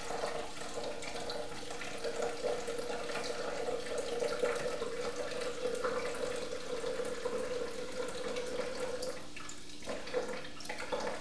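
Freshly carbonated water poured slowly from a SodaStream bottle into a clear plastic measuring jug: a steady trickle with a fizzy crackle, to measure 10 fluid ounces. The pour stops about nine seconds in, followed by a few short dribbles.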